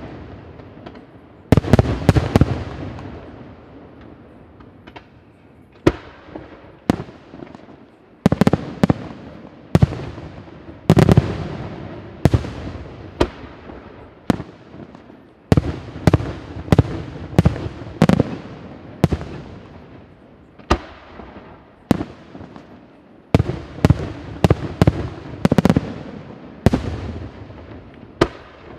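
Senatore Fireworks aerial shells bursting one after another, each a sharp bang trailing off in a rolling echo. After a short lull a few seconds in, the bursts come thicker, about one a second or faster through the second half.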